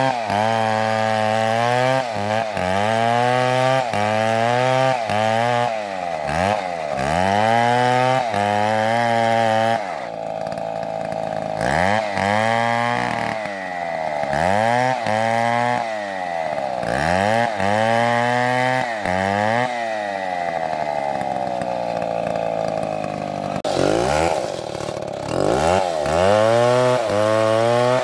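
A two-stroke chainsaw cutting wood. Its engine revs up and down about once a second, with two stretches of steadier running, one about ten seconds in and another past the middle.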